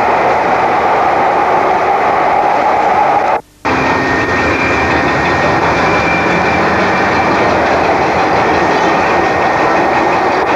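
Steady running noise inside a Docklands Light Railway light-rail car in motion. The sound drops out completely for a moment about three and a half seconds in.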